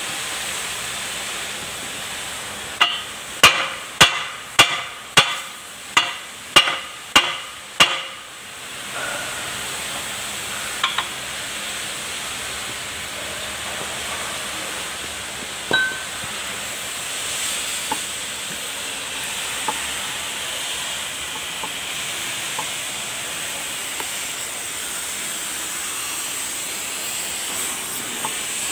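About nine ringing hammer blows on metal, a little over half a second apart, while a rotary tiller's rotor and chain case are being put back together. After that comes a steady hiss with a few light clicks.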